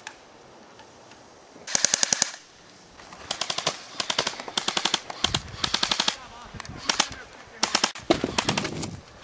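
Airsoft guns firing a series of short full-auto bursts, rapid clicking shots at roughly fifteen a second. The first burst comes about two seconds in, and several more follow in quick succession.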